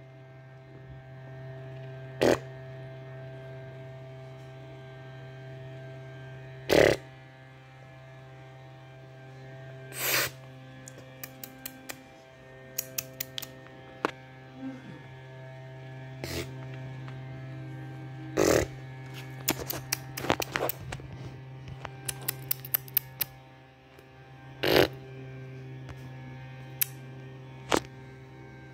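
Telephone line hum from a rotary-dial telephone after dialling: a steady low hum with faint higher tones above it. It is broken by scattered sharp clicks and knocks and a few quick runs of small ticks.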